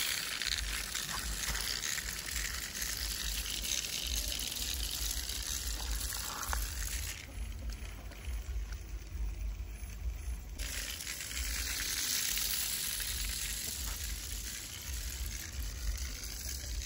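Remote-control centipede toy crawling on concrete: a steady crackling whirr of its small motor and plastic legs. The noise drops away for about three seconds midway.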